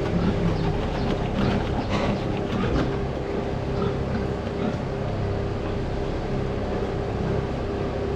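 Small battery-powered kerosene pump running steadily as it sucks floodwater out of a pig barn's manure pit, with some light clatter in the first few seconds.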